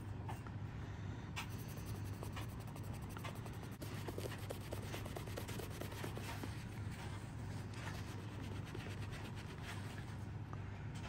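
Small metal clock piece being polished by hand, with quick, irregular scratchy rubbing strokes. A steady low hum runs underneath.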